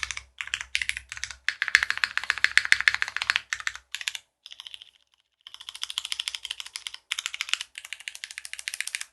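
Fast typing on a custom mechanical keyboard with tactile Cherry MX Brown Hyperglide switches, an O-ring gasket-mounted aluminium plate and GMK keycaps: rapid clacking keystrokes in runs, with short breaks and a half-second pause about halfway through.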